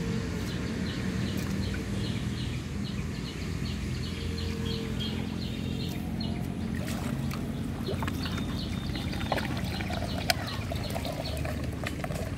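A steady low hum, with birds chirping over it.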